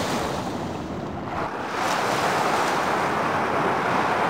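Small waves washing onto a sandy beach, the surf ebbing about a second in and swelling again as the next wave comes in.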